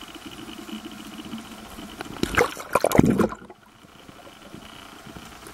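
Underwater recording: a faint steady crackle with a low hum, then a loud rush of bubbling, sloshing water at the camera about two seconds in, lasting about a second before it goes quieter.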